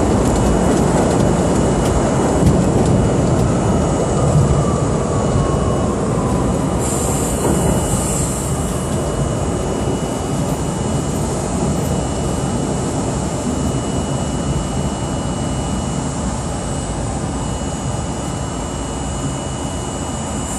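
R32 subway car running on the rails through the tunnel and into a station: a steady rumble and wheel noise that slowly eases as the train slows. A whine falls in pitch a few seconds in.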